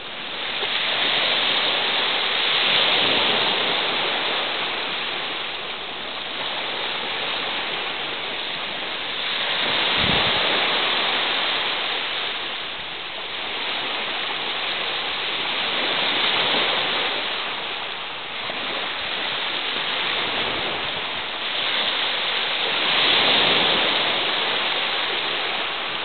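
Small waves breaking and washing up a shingle beach: a steady hiss of surf that swells and falls back about every six or seven seconds.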